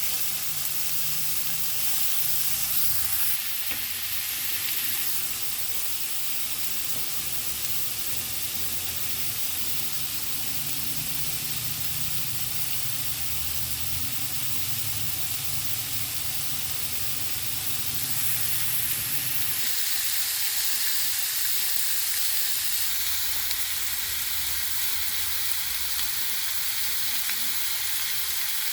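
Food frying in hot oil in a pan, a steady sizzle.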